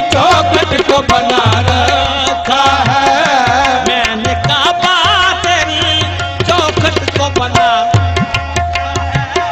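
Urdu devotional kalam music: an ornamented, wavering melody over a steadily held drone note and a repeating hand-drum beat.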